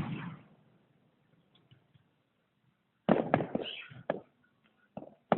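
Fireworks going off: the echo of a loud bang dies away, then after a pause a cluster of bangs starts about three seconds in, followed by a couple of sharp single cracks near the end.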